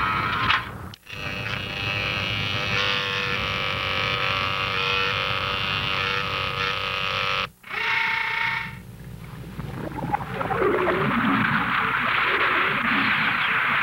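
Cartoon sci-fi sound effects for an underwater missile attack: a steady electronic drone made of many held tones that cuts off after about six seconds and returns briefly, then a rushing, churning water noise as the missiles run through the sea.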